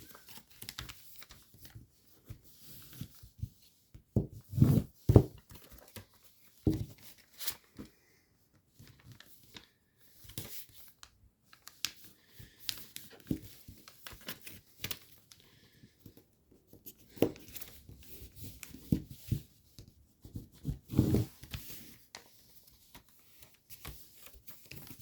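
A sheet of origami paper being handled, folded and creased by hand: irregular rustling and crinkling, with a few louder knocks about four and five seconds in and again near the end.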